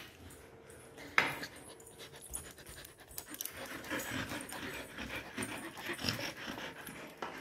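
A golden retriever panting and gnawing at a wooden stick, with a sharp knock about a second in.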